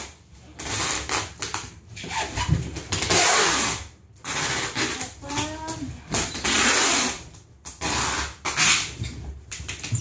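Packing tape being pulled off the roll and pressed onto a cardboard box: a series of loud ripping screeches, one after another, with short pauses between pulls.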